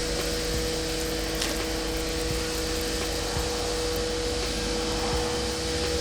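Pressure washer running steadily with a constant motor hum, spraying water over a removed engine block.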